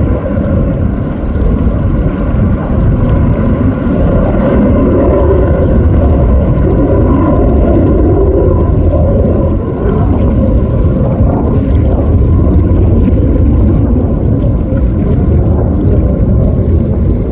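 Fighter jet engines producing a loud, steady low roar. A few faint whining tones are heard early on and fade partway through.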